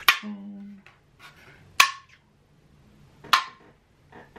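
Small disc magnets snapping onto other magnets: three sharp clicks about a second and a half apart.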